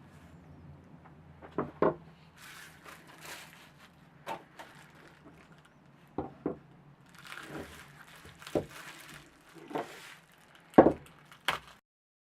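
A series of irregular knocks and clicks of hard objects being handled and set down, with rustling between them; the loudest knock comes near the end.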